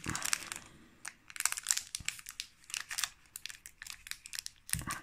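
Foil Pokémon booster pack wrapper crinkling in irregular crackles as fingers work at its top edge to tear it open.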